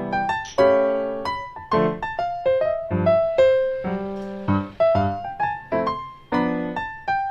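Background music: a solo piano playing a slow melody of single notes and chords, each note fading after it is struck.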